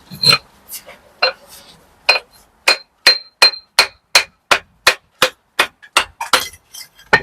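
A brick being chipped into a wedge shape with a steel hammer: sharp, ringing blows, a few spaced at first, then a steady run of about three a second from about two seconds in.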